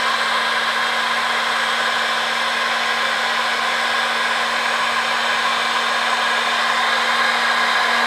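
Handheld hair dryer running steadily: a rush of air over a steady motor hum. It is being test-run and still blows air that is not very hot, which the repairer puts down most likely to broken heating elements.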